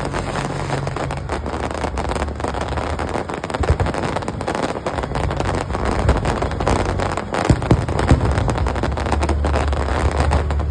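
Fireworks going off in a rapid run of bangs and crackles, over a steady low engine-like drone.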